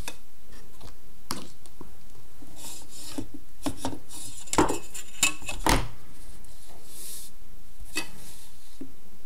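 A clear plastic 45-degree set square and a pencil on drawing paper: the set square is shifted and set down with several light knocks and clicks, and the pencil scratches out a few short lines.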